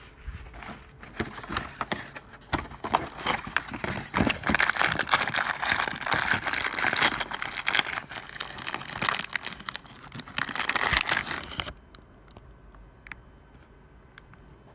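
Crinkling and rustling of foil packaging handled close to the microphone, in dense crackly bursts that stop abruptly near the end.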